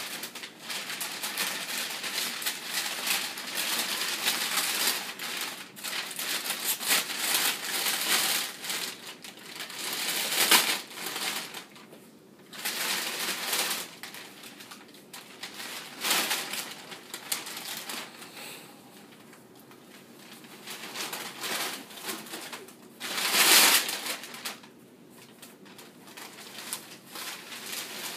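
Christmas wrapping paper being ripped and crumpled off a large cardboard box, with the cardboard box scraped and shifted about. The rustling is irregular throughout, with two louder bursts about ten seconds in and about twenty-three seconds in.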